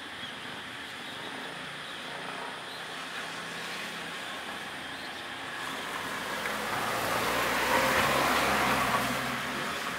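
A road vehicle passing nearby, its engine and road noise growing louder to a peak about eight seconds in and then fading.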